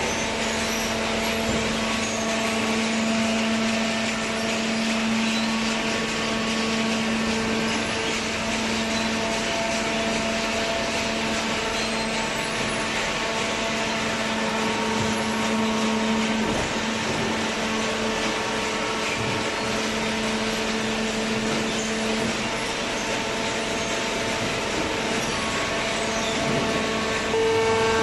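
Semi-automatic hydraulic carton baler running: a steady machine hum with a held whining tone, stepping up louder shortly before the end.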